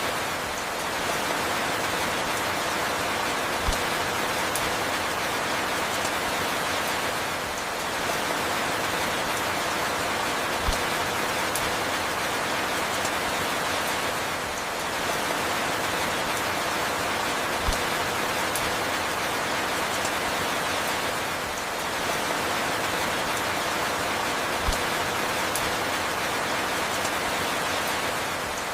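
Steady rain falling, an even hiss of many drops, with a low knock about every seven seconds; the same pattern repeats every seven seconds, like a short loop of rain.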